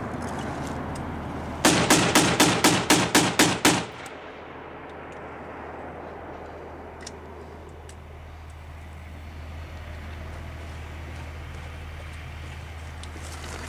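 A loud burst of automatic weapon fire, about ten rounds at roughly five a second, starting a couple of seconds in and lasting about two seconds. A few faint, isolated cracks follow later.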